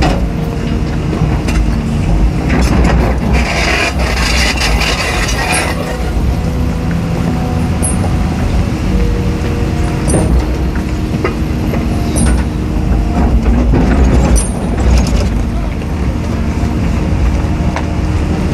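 Caterpillar 320D excavator's diesel engine running steadily under load with hydraulic whine, heard from inside the cab, as the bucket digs through sand and rock. Scattered knocks of stone against the bucket, and a brief hissing rush about four seconds in.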